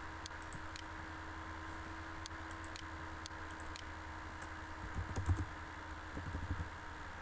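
Faint computer keyboard typing and mouse clicks over a steady electrical hum and hiss, with a few dull low knocks about five and six seconds in.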